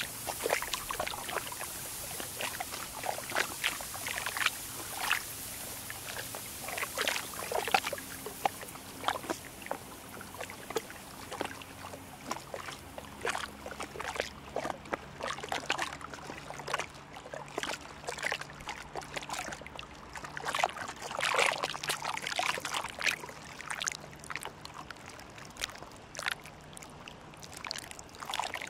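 Canal water lapping and trickling in small irregular splashes against the quay and moored boats, over a low steady hum.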